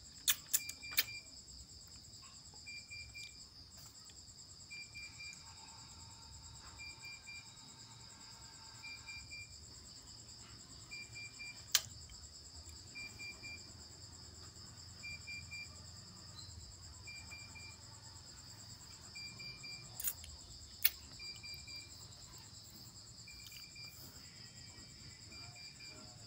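Insects trilling steadily at a high pitch, with a short chirp repeating about every two seconds and a few sharp clicks.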